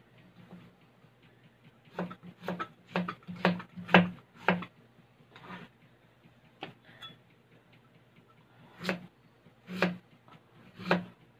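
Large kitchen knife chopping a carrot on a cutting board: sharp knocks, a run of about six chops at two a second starting about two seconds in, then single chops spaced a second or more apart near the end.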